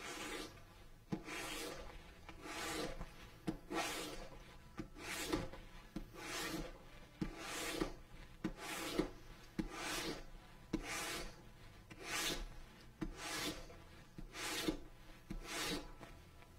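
Edge of a leather panel being worked by hand in rhythmic rubbing strokes, a little more than one a second, with a faint click at the start of some strokes.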